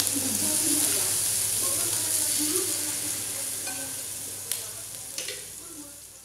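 Sea snails sizzling on a hot grill pan, a steady hiss that fades away over the last couple of seconds, with a couple of light clicks.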